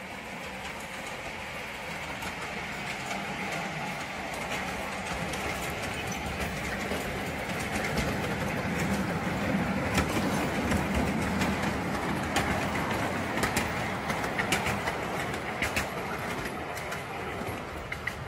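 Miniature live-steam passenger train rolling past on its narrow-gauge track, a steady rumble of wheels on rails that grows louder toward the middle and then eases as it moves away, with a run of sharp clicks in the second half.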